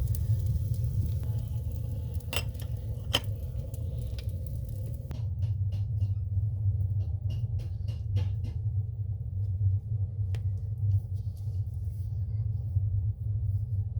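A steady low rumble with scattered light clicks and knocks over it.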